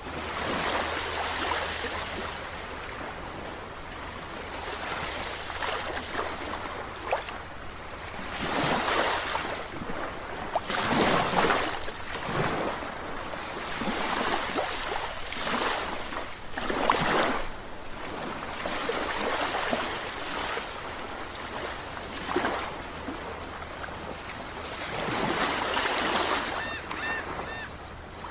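Sea waves breaking and washing up a beach, in broad surges that swell and fade every few seconds.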